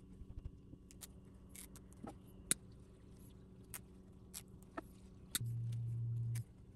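Hands working artificial leaves into ghillie netting: faint scattered crackles and ticks of the plastic leaves and mesh being handled, over a low steady hum. About five seconds in, a louder low hum sounds for about a second, then cuts off.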